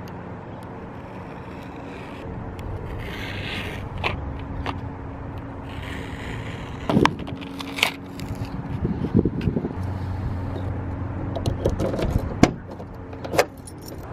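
Single-edge razor blade scraping and slicing through the cardboard back of a bulb blister pack, then the card being pried and peeled open, with several sharp clicks and taps.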